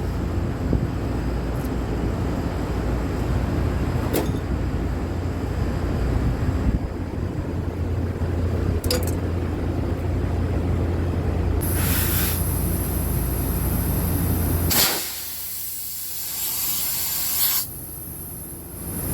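A steady low machinery hum, joined about two-thirds of the way through by a high hiss of escaping gas. Near the end the hum cuts off suddenly and the hiss carries on briefly.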